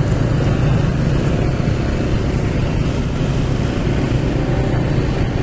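Motorcycle engine running steadily while riding, with wind rushing over the microphone, making a loud, even noise.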